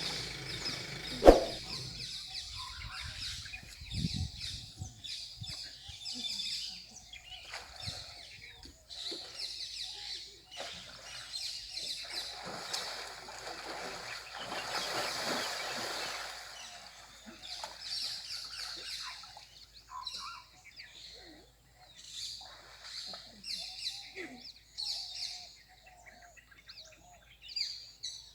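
Wild birds chirping and calling throughout, with a sharp click about a second in.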